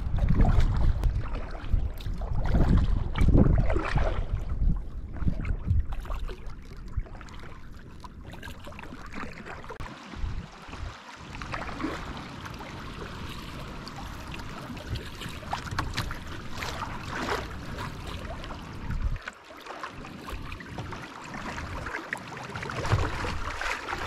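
Water splashing and rippling against a kayak's hull as it moves down a shallow creek, with wind buffeting the microphone, heaviest in the first few seconds.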